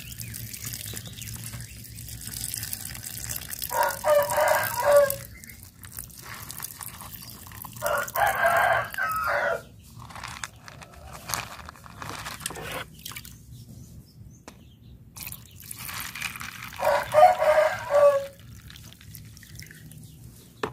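A rooster crowing three times, each crow a second or so long, with long gaps between. Between the crows, water is poured and splashed as the seeds' soaking water is changed.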